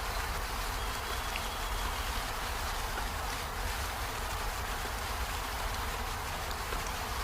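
Steady rain falling on peony flowers and leaves: an even hiss with a few faint drop ticks and a low rumble underneath.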